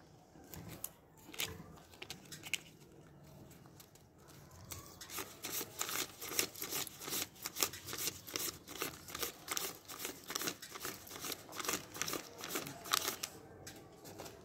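A stack of paper banknotes being counted by hand, each note flicked off the wad with a crisp snap. Soft rustling at first, then from about five seconds in a quick, steady run of flicks that stops just before the end.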